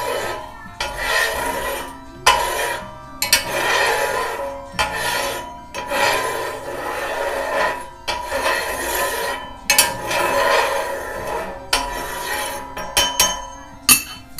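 Repeated rasping, scraping strokes, each about a second long, about eight in all, with a few sharp clicks near the end.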